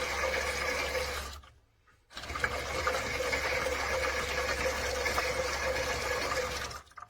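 Small battery-powered motor of a toy washing machine turning its water-filled drum on the wash cycle, a steady mechanical whir. It stops about a second and a half in, starts again under a second later, and stops just before the end.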